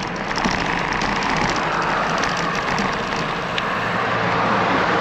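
Steady road noise of car traffic going by in the lanes alongside, mixed with wind rush on the moving camera's microphone; a car passing close makes it swell louder, with a low engine hum, from about four seconds in.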